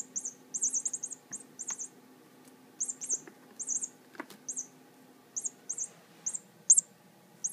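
Small jingle bell in a cat toy jingling in quick, irregular bursts as a cat bats and pushes at it, with one soft knock about four seconds in.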